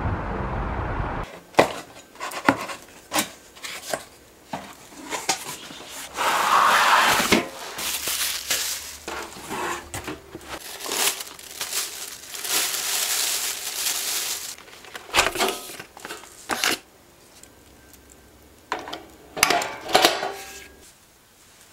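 Unboxing an electric deep fryer: packaging crinkling and rustling in two longer stretches, amid many sharp clicks and clanks of the fryer's stainless steel basket and parts being handled. Background music ends about a second in.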